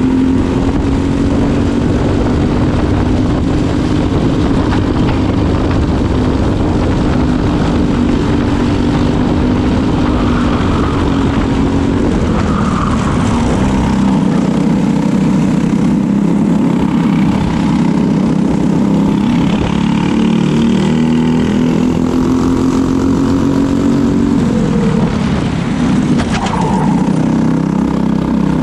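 Briggs & Stratton LO206 four-stroke single-cylinder kart engine running hard at race speed, heard on board. Its pitch drops as it slows into corners and climbs again as it pulls out, a couple of times.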